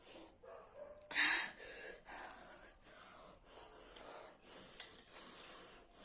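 A woman gasping and breathing hard through her mouth, with one loud gasp about a second in and then a run of quicker, softer breaths. These are the sharp breaths of a mouth burning from very hot raw green chillies.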